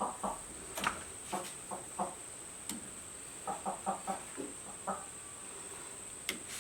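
Chicken clucking in short, separate calls, with a quick run of four or five clucks about halfway through.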